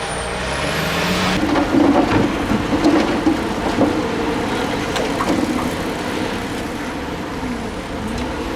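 Heavy diesel earthmoving machinery running: an engine revs up, then, after an abrupt change about a second and a half in, a diesel engine keeps running with scattered metallic clanks and knocks.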